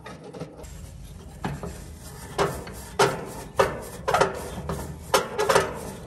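Short rasping scrapes on a copper line-set stub as it is deburred and scuffed clean with an abrasive pad, so the O-ring of a press fitting will seal. There are about eight quick strokes, starting about a second and a half in and coming faster near the end.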